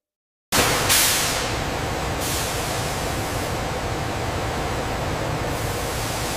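Loud steady hiss of steam venting from industrial pipework. It cuts in suddenly about half a second in, surges brighter about a second in, and a faint steady tone runs beneath it.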